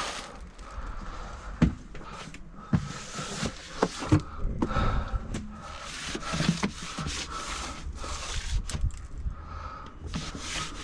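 Cloth rubbing and scrubbing across the RV floor, with scattered knocks and shuffling footsteps.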